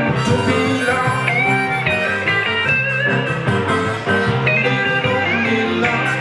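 Live blues band playing: electric guitar and keyboard under a harmonica played into the vocal microphone, with held and bending high notes.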